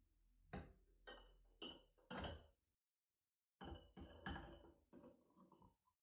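Small metal parts clinking and knocking as they are handled: four sharp clinks about half a second apart, then an abrupt dead-silent break, then a few more clinks with a short metallic ring.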